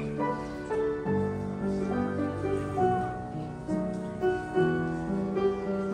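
Instrumental music led by piano, a melody of held notes over a steady lower line.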